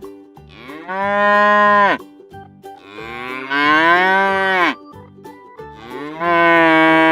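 Cow mooing: three long moos, each lasting one to two seconds.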